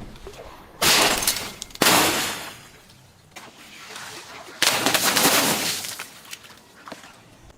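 Glass breaking in three loud smashes, each with a shattering tail that dies away within about a second: the first two close together, the third a few seconds later.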